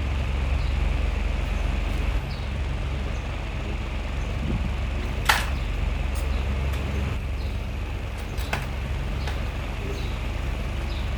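Electric fan running with a steady low rumble. A sharp click comes about five seconds in, and a fainter one a few seconds later.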